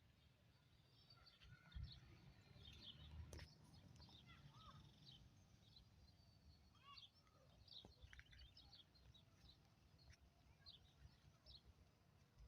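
Faint birdsong: several birds giving short chirps and whistles scattered throughout, over a low rumble.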